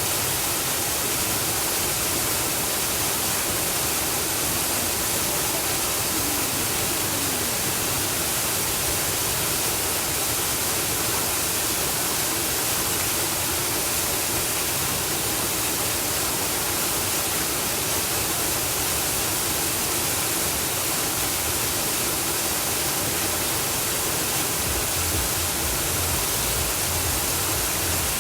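Waterfall pouring: a steady, even rush of falling water. A low rumble comes in near the end.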